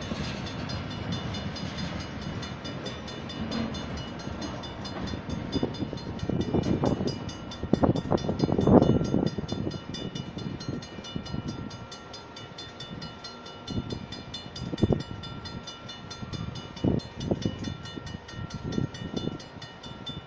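Safetran mechanical grade-crossing bell ringing rapidly and steadily, stopping right at the end, while the last freight tank cars roll through the crossing with wheel clatter and knocking that peaks about eight seconds in. A few brief thumps follow after the train has cleared.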